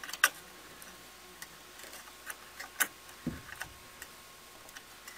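Small, scattered clicks and taps as a coin-cell CMOS battery is handled and pressed into its holder on a motherboard, the sharpest about a quarter second in and again near three seconds, with a soft low thump just after.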